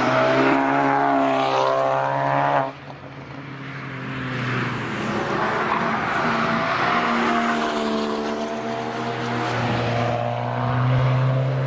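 Two cars passing on track in turn, engines pulling steadily through the corner. The first, a Volkswagen Golf GTI, cuts off suddenly about three seconds in. A second engine, a Mitsubishi Lancer Evolution X, then builds and grows louder toward the end.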